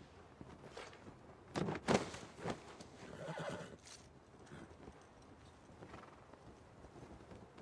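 Horses carrying riders: a few sharp hoof strikes about one and a half to two and a half seconds in, then a horse whinnying for about a second, with fainter hoof sounds after.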